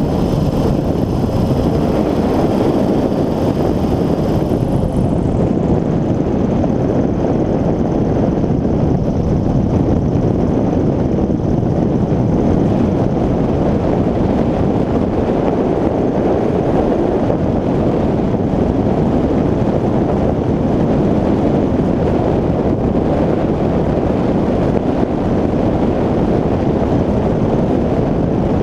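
North Wing Maverick 2 ultralight trike's engine and pusher propeller running steadily in cruise, mixed with wind rushing over the microphone.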